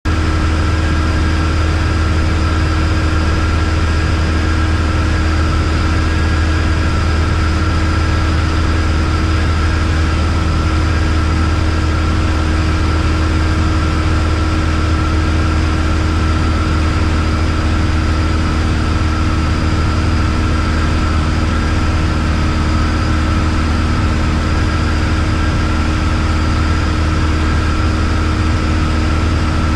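Single-engine piston aircraft (Embraer EMB-712 Tupi, four-cylinder Lycoming) in flight: engine and propeller drone steadily inside the cabin, with a strong low hum and even noise on top.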